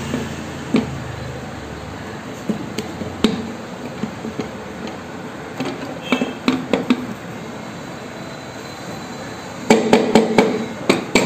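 Scattered metallic clicks and knocks of tools and parts against the aluminium clutch cover of a Bajaj Pulsar 220F engine as it is seated. Near the end comes a fast run of metallic clicks as a socket wrench turns in a cover bolt.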